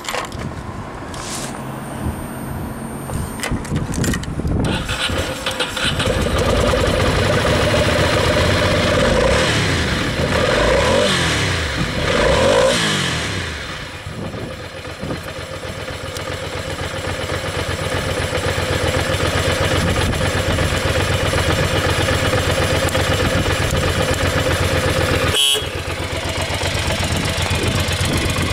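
Ducati Monster 400's air-cooled V-twin on its stock exhaust, being started, then running at a fast idle. About ten to thirteen seconds in, the throttle is blipped a few times, with the pitch rising and falling. It then settles into a steady idle.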